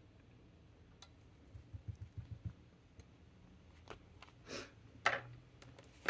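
Desk handling noise: a click, a quick run of soft low knocks, then a few light clicks and two short brushing swishes as a paper planner and other things on the desk are moved about.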